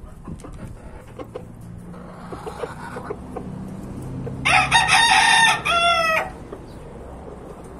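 A rooster crows once, starting about four and a half seconds in and lasting about two seconds, a held note followed by a short break and a falling final note. Faint clucking comes before it.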